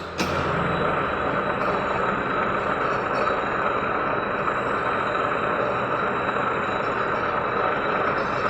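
A workshop machine running steadily: a constant, even noise with a faint high whine.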